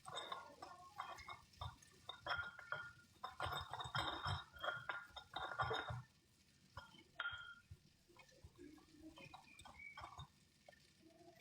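Kitchen utensils and dishes clinking and knocking in quick irregular strokes, busy for about six seconds, then only a few scattered taps.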